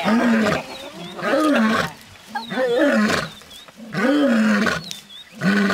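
A lioness growling and roaring at her kill, about five rough calls in a row roughly a second and a half apart, each rising then falling in pitch. Faint birdsong chirps sound between the calls.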